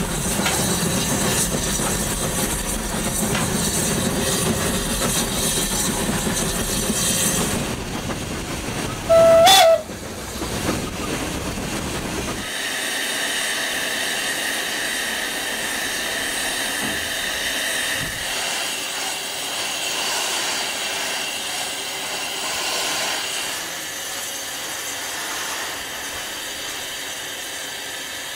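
Steam rack locomotive: steady working noise in the cab beside the open firebox, then one short, loud blast of the steam whistle about nine seconds in. After that comes a steady hiss of steam from the standing locomotive.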